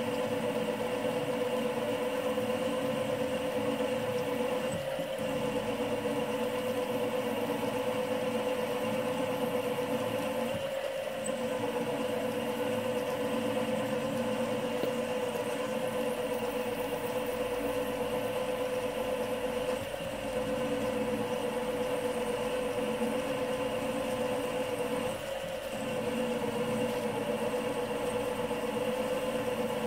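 Small benchtop mill's spindle motor running steadily with a high hum while a drill bit cuts holes in a metal block. The hum dips briefly four times as the drill is fed into the work.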